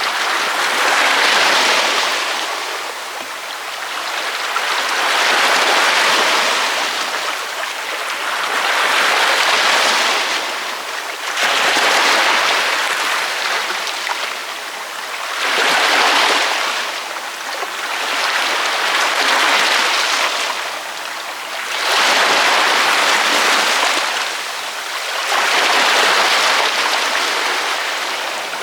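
Ocean waves breaking on a beach, the surf swelling and fading about every three to four seconds, some eight waves in all.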